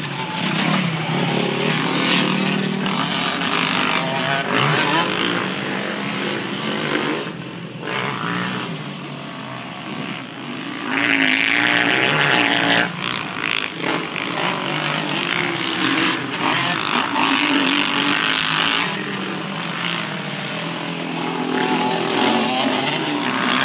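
Several motocross dirt bike engines revving and easing off as riders work round the track, the pitch rising and falling again and again, with a louder stretch about halfway through.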